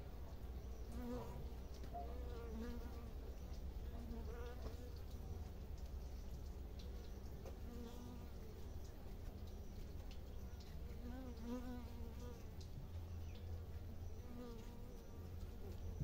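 Honeybees buzzing in their hive: a steady low hum from the clustered colony, with single bees buzzing close by every second or two, each buzz short and wavering in pitch.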